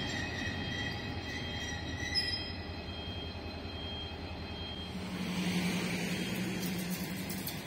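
M62M diesel locomotive hauling coal wagons at low speed over a low rumble, its wheels squealing in steady high tones that die away about two-thirds of the way through. A low steady tone comes in near the end.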